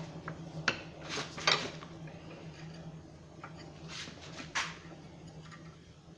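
Steel rod clinking and scraping against a hot steel knot of quarter-inch round stock clamped in a vise, as the loops are worked into line: a few sharp metallic taps, the loudest about a second and a half in, over a steady low hum.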